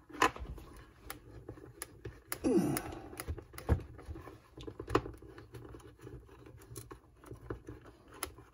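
Scattered sharp clicks and knocks of a screwdriver working against the screws and metal chassis of a 1960s reel-to-reel tape recorder, the screws stuck very tight. A short falling voice-like sound comes about two and a half seconds in.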